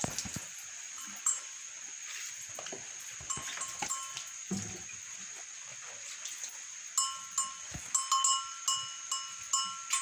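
Hand milking: jets of milk squirting into a metal pail, each stroke a short ringing hiss, sparse at first and then in a quick run of two to three strokes a second near the end.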